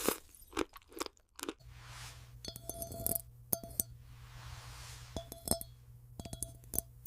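Sharp crunches and taps on glass: the first few crisp and dry, the later ones clinking with a short ringing tone, in small clusters a second or so apart, over a faint steady low hum.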